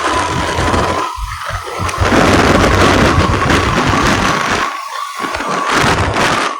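Wind buffeting the microphone of a moving motorcycle: loud, gusting rush with low rumble that drops away briefly about a second in and again near the end.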